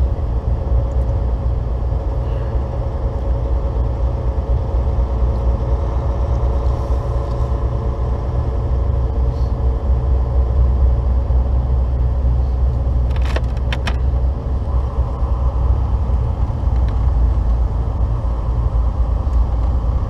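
Steady low drone of a 2015 Volvo 670 semi truck cruising on the highway: engine and tire noise as heard inside the cab. A few quick clicks about thirteen seconds in.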